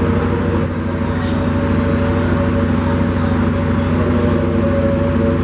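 A loud, steady hum with several unchanging pitches layered over a haze of noise.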